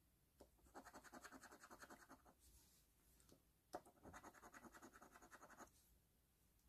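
Faint scratching of a coin scraping the coating off a lottery scratch-off ticket. It comes in two quick bursts of rapid back-and-forth strokes, each a second and a half to two seconds long, with a sharp tap just before the second burst.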